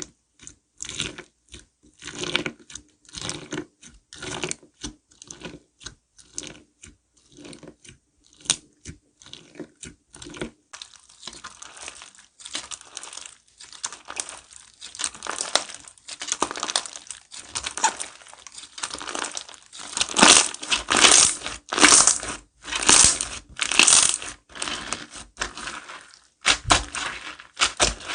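Slime being squeezed and pressed, crackling with crunchy pops. About two presses a second at first, then denser crackling, then louder presses about once a second near the end.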